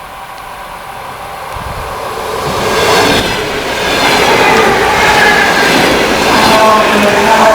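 A train approaching along the track, getting louder over the first three seconds, then running close by with wheel-on-rail noise and a high ringing whine.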